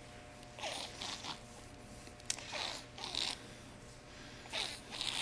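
Water in a baptismal font splashing and trickling in several short bursts as a hand dips into the bowl, with one sharp click midway.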